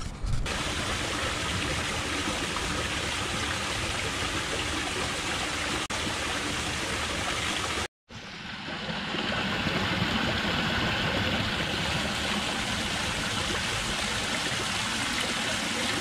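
Waterfall splashing and rushing steadily. It cuts out abruptly about eight seconds in and then resumes.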